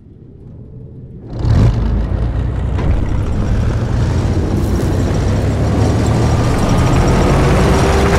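Sound effects of a cinematic video intro: a low rumble fades in, then about a second and a half in jumps to a loud, steady heavy mechanical rumble of gears and tank machinery.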